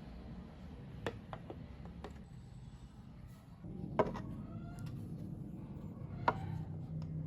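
Scattered light clicks and taps, with two sharper ringing clinks about four and six seconds in, over a low steady hum.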